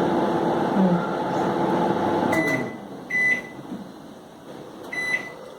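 Panasonic 27L convection microwave oven running with a steady hum that stops about two seconds in, followed by three short high-pitched beeps from the oven.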